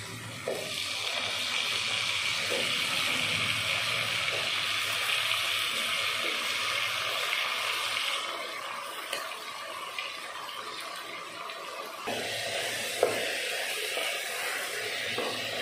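Wet potato chunks, taken from soaking water, sizzling as they hit hot oil in a pot with fried onions and tomatoes. The water on them makes a loud, steady hiss that dies down after about eight seconds. Near the end a wooden spoon stirs and scrapes in the pot, with one sharp knock against it.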